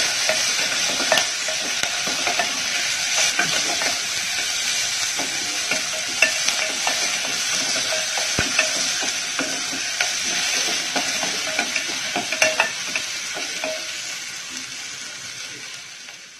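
Chopped onion, tomato and dried red chillies sizzling in hot oil in an open pressure cooker, stirred with a wooden spatula that scrapes and taps against the pot. The sizzle fades out near the end.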